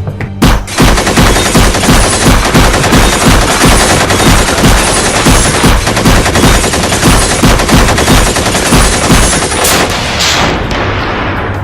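Sustained automatic gunfire, a dubbed machine-gun sound effect firing rapid shots for about nine seconds and stopping near the end.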